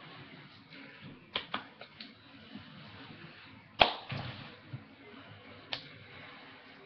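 Hands slapping and tapping against each other while signing in American Sign Language: a few light taps, then one sharp smack about four seconds in, and another tap near the end.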